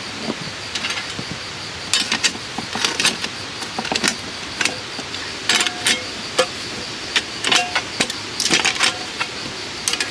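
Camping gear being handled while setting up camp: an irregular run of sharp clicks, knocks and light metallic jangles over a steady background hiss.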